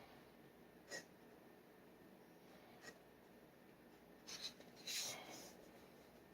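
G nib dip pen scratching on paper in a few short strokes: a faint one about a second in, another near three seconds, then a longer, louder run of scratches around five seconds.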